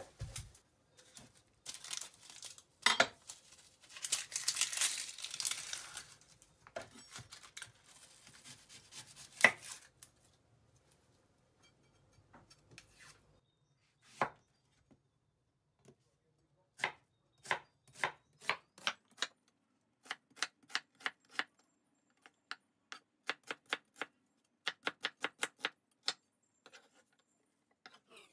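Rustling and handling noise with a few sharp knocks, then a kitchen knife slicing an onion on a wooden cutting board in quick runs of short, crisp strokes separated by pauses.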